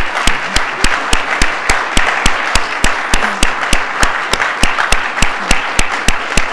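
Audience applauding, a steady patter of many hands. One person claps loudly and evenly close to the microphones, about three to four claps a second.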